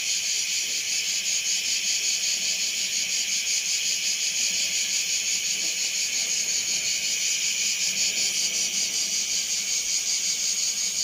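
Steady, high-pitched, fast-pulsing chorus of insects, cricket-like, keeping an even level throughout.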